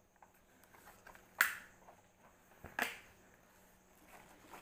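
Two short, sharp handling noises about a second and a half apart, from a boxed toy bow-and-arrow set's packaging being moved and bumped close to the microphone.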